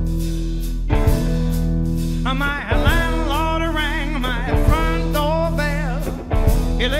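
Small live rock 'n' roll band playing an instrumental intro: upright double bass, electric guitar and a drum kit with a sharp hit about every two seconds. A wavering, bending lead melody comes in about two seconds in.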